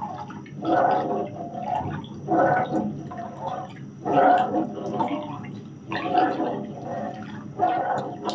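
Soy milk being stirred in a non-stick frying pan with a wooden spatula: the liquid swishes and sloshes in regular strokes, about one every second and a half to two seconds.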